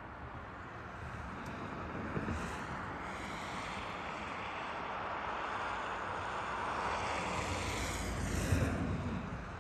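A vehicle passing on the road: tyre and engine noise that slowly swells, peaks about eight seconds in, then fades.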